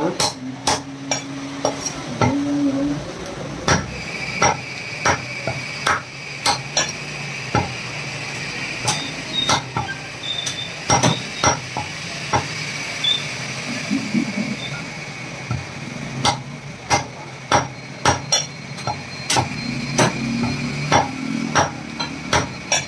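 Heavy butcher's cleaver chopping bone-in mutton on a wooden chopping block: an irregular run of sharp chops, about one or two a second.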